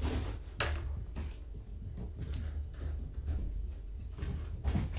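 Irregular soft thumps and scuffles of kittens running and wrestling on a rug and rubber floor, over a steady low hum.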